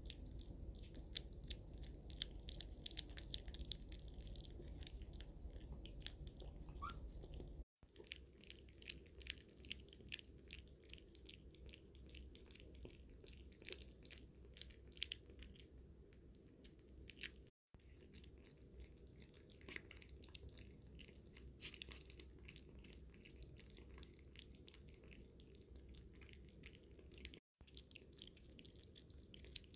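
Cavoodle puppies eating soft puppy mush from a stainless steel bowl: faint, rapid chewing and smacking clicks, broken by three brief silent gaps.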